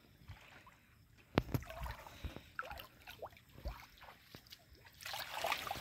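River water splashing and dripping as a hand net is worked through it, with scattered small drips and splashes and a louder spell of sloshing near the end.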